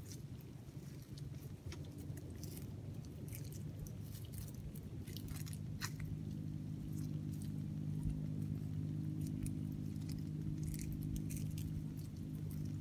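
Hands digging and pulling in wet mangrove mud at a crab burrow: irregular crunching, squelching and snapping of mud and roots. Under it runs a low steady hum that grows louder about five seconds in.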